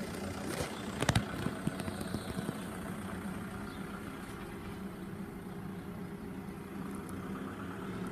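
A car engine idling steadily, with one short click about a second in.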